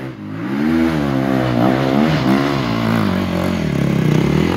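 350 cc four-stroke enduro motorcycle climbing a steep muddy slope under load, its engine note rising and falling repeatedly as the rider works the throttle.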